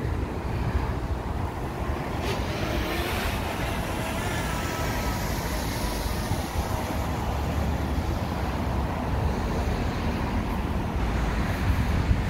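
City street traffic noise: a steady rumble of cars and other vehicles passing along the road.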